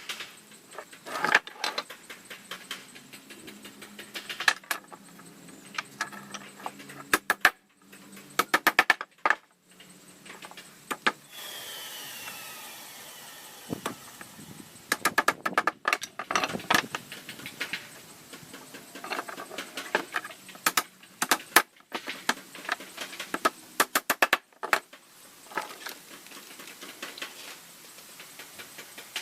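Irregular clicks, knocks and rattles of hand tools and wood being handled, with a steady hiss lasting about three seconds near the middle.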